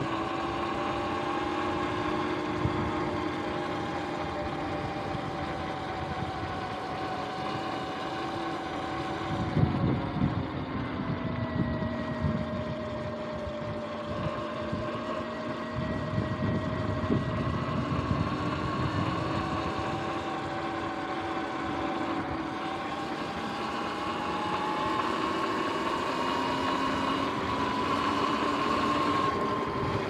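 Sur-Ron X electric dirt bike's motor and chain drive whining under way, the pitch following road speed: it sinks about a third of the way in and climbs to its highest near the end as the bike speeds up.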